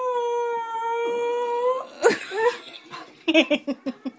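A collie howling along to music: one long, steady howl held for nearly two seconds, then shorter howls that rise and fall and break into a quick run of short sounds near the end.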